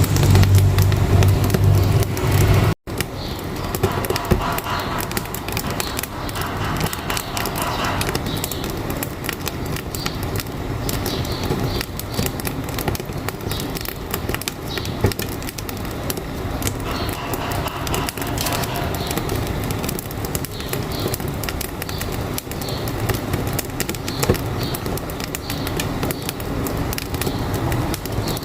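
Wood fire in a wood-burning stove crackling with dense, rapid pops. For the first few seconds a heavy low truck rumble plays over it, and this cuts off abruptly almost three seconds in.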